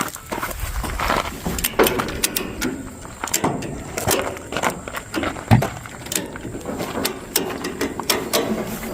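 Irregular mechanical clicking and knocking, with a ratchet-like clicking among it and one heavier knock about five and a half seconds in.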